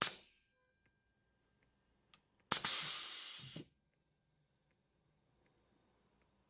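Compressed air exhausting in sharp hisses from a 24 V 5/2 pneumatic solenoid valve as it switches the cylinder: a short hiss at the start, a longer blast of about a second a little before halfway that tails into a faint high hiss, and another blast starting right at the end.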